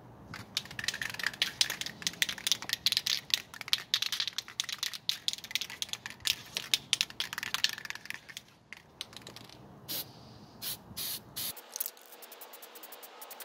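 Aerosol spray can of primer: a long run of quick clicks over a hiss, then about four short bursts of spray near the end.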